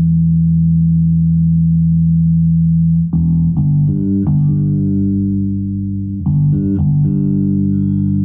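Six-string Kodera electric bass played through a Hartke bass head and Ampeg cabinet: a held low note rings, then a few plucked notes come about three seconds in and again about six seconds in, each left to ring. The mid EQ is being swept to find the point where the tone starts to change.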